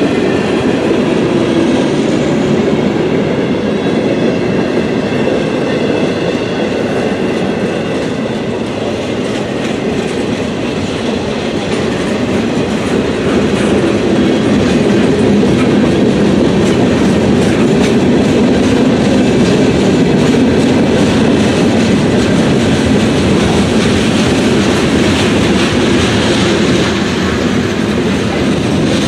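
A train's cars rolling past close by, the wheels clattering over rail joints in a steady stream of clicks, with a faint wheel squeal in the first few seconds.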